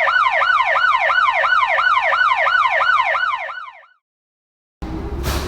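Electronic siren in a fast yelp: a quick rise and slower fall in pitch, repeating about three to four times a second. It fades out just before four seconds in. After a moment of silence, a loud rumbling noise with thumps starts near the end.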